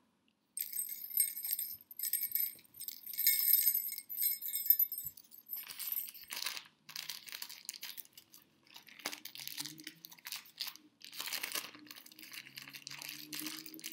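Small jingle bells jingling for a few seconds, followed by wrapping paper rustling and tearing in short crackly strokes as a small present is unwrapped.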